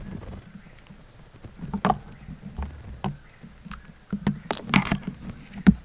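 Handheld camera handling noise and footsteps through low forest brush: scattered sharp clicks and rustles with short low thumps, busiest about halfway and again near the end.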